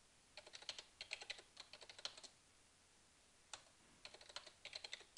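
Faint typing on a computer keyboard: a quick run of keystrokes, a lone keystroke a little after halfway, then another run of keystrokes near the end.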